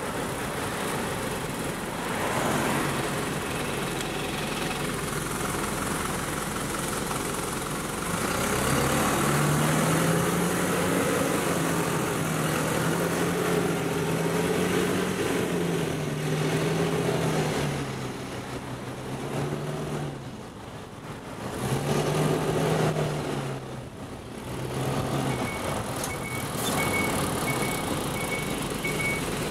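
City road traffic heard from a bicycle: motor vehicles running and passing, with a nearby engine's low hum stepping up and down in pitch through the middle. About 26 seconds in, a vehicle's reversing alarm starts beeping steadily.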